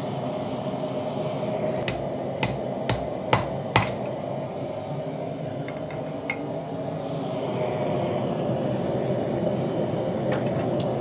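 Hand hammer striking steel on an anvil, hot cutting through a red-hot Damascus knife blank: five hard blows about half a second apart, each with a short metallic ring. A few lighter clinks follow over a steady background hum.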